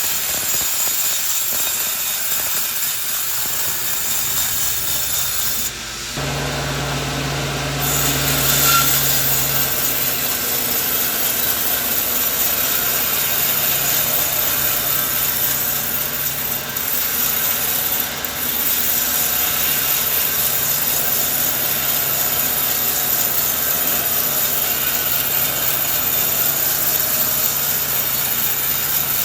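Sawmill saw cutting through coconut tree wood: a steady, loud sawing noise, with a low machine hum that comes in about six seconds in.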